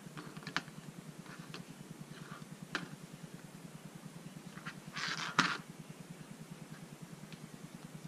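Handling noise from a CPAP mask's fabric headgear straps and plastic clips: scattered light clicks and rustles, with a louder rustle and sharp click about five seconds in, over a steady low hum.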